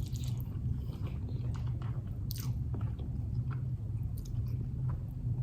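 Close-up chewing of a big mouthful of fast food, with small wet clicks and crunches over a steady low hum.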